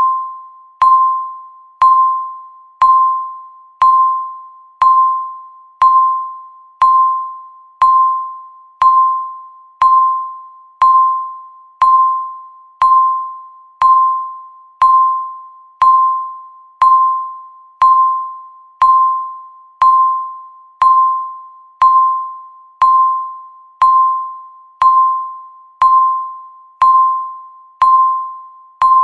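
Countdown timer beeping once every second: each beep is a single tone that starts sharply and fades out before the next.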